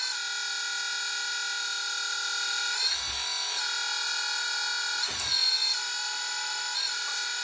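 Electric hydraulic pump of a 1/14-scale RC hydraulic dozer running with a steady whine. Its pitch dips and comes back briefly about three seconds in and again around five seconds, as the blade-angle valve is worked and the blade cylinder moves.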